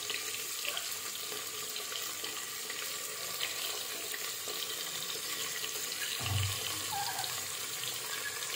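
Sliced onions frying in hot mustard oil in an aluminium pressure cooker as they are tipped in: a steady sizzling hiss.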